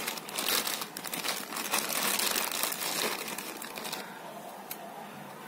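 Clear plastic wrap crinkling as it is handled and pulled off a laptop charger. The crinkling stops about four seconds in.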